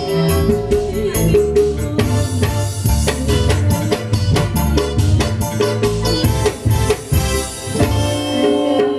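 Live band music amplified through a PA: a keyboard melody over a steady hand-drum and drum-kit beat.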